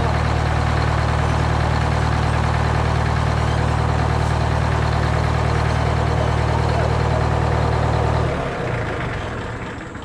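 GM 4-71 supercharged two-stroke diesel ('Screaming Jimmy') running steadily with no load. About eight seconds in it cuts out and dies away.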